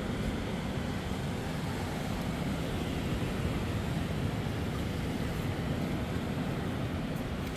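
Steady low rush of ocean surf, with wind on the microphone.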